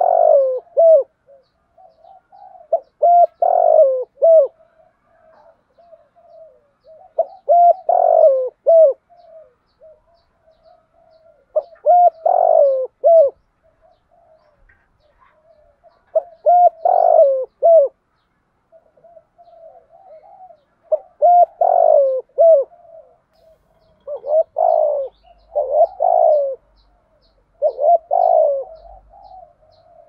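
Spotted dove cooing its song over and over, in what bird keepers call the 'thổ' voice. A loud phrase of several coos comes about every four to five seconds, with softer coos between the phrases.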